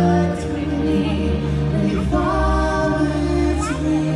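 Stage-show music: a choir singing long held notes over a deep bass, the chord changing about halfway through.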